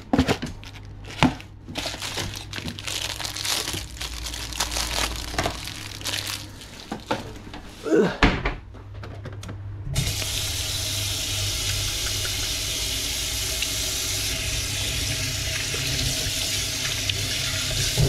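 Scattered clicks and knocks of handling in a kitchen, then a kitchen mixer tap turned on about ten seconds in, its water running steadily into a stainless steel sink.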